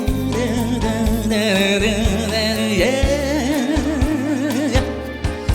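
Live band accompaniment of a Korean ballad during a break without lyrics: a steady beat under a lead melody line that holds long notes with vibrato.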